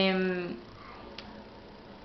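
A woman's drawn-out hesitation sound, one held vowel that trails off about half a second in, followed by quiet room tone with a single faint click.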